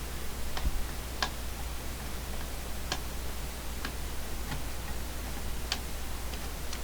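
Scattered light clicks and taps of a tool working on screws inside a CB radio's chassis, about seven irregularly spaced, over a steady low hum.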